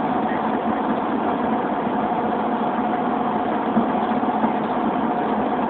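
Steady engine drone inside a van's cabin, with a faint constant hum tone.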